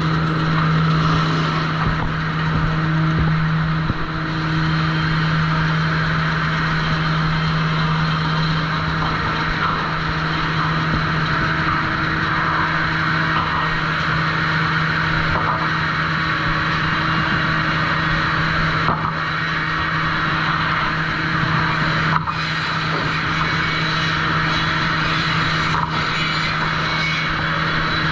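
Sawmill trim saw line running steadily, with a constant low motor hum under a broad whirring hiss. A few sharp knocks sound here and there.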